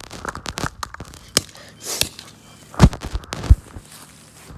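Sharp knocks and cracks from an old plastic Samsung flip phone being smashed and broken apart: scattered small hits, with the two hardest about three and three and a half seconds in.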